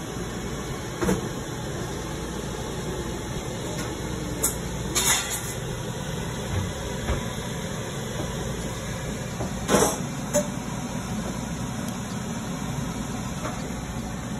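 Steady low rumbling kitchen background noise, with a few short sharp knocks and clatters of cookware; the loudest knock comes nearly ten seconds in.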